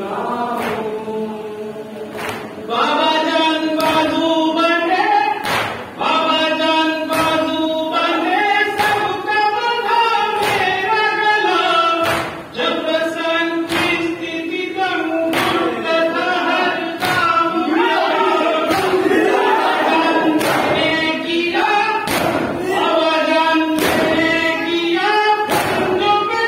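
A nauha chanted by a lead reciter with mourners singing along, over the thud of hands beating on chests (matam) in a steady rhythm of about one strike a second.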